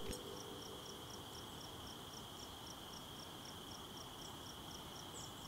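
Faint insects chirping: a steady high-pitched buzz under a regular chirp about four times a second.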